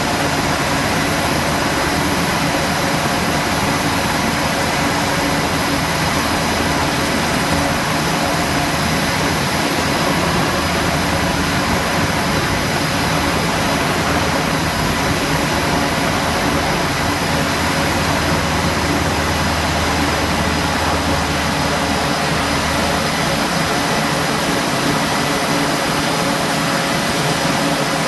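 A Navy Seahawk helicopter's twin turboshaft engines and rotor running at high power through lift-off from a carrier flight deck. It makes a loud, steady noise with a constant high turbine whine.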